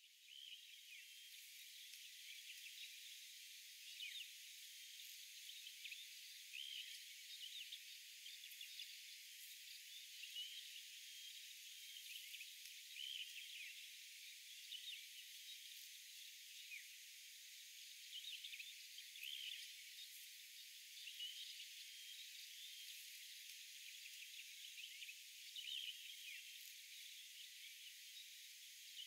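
Faint early-morning outdoor ambience: scattered short bird chirps over a steady, high insect hum.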